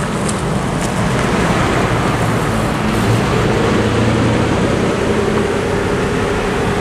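Road traffic: cars and a pickup truck driving over a railroad crossing, a steady rush of tyres and engines, with an engine hum growing louder from about halfway through as the pickup comes close.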